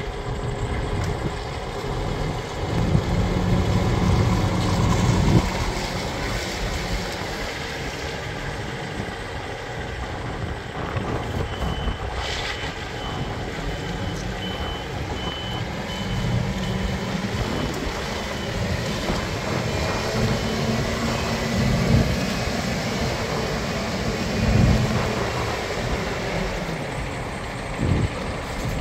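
Low rumble of heavy trucks in a lorry yard, with a truck's reversing alarm beeping about twice a second for a few seconds near the middle.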